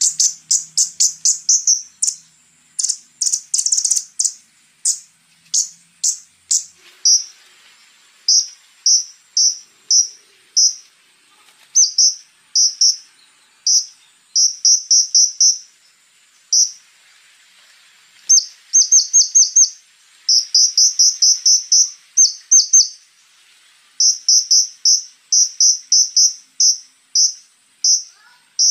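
Kolibri ninja (konin) sunbird singing: quick runs of sharp, high-pitched chirps, several notes at a time, broken by short pauses. A faint steady high insect-like trill runs behind the song.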